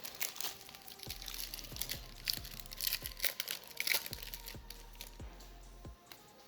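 Crinkling and tearing of a foil trading-card booster pack wrapper, in quick irregular bursts that die down after about four and a half seconds.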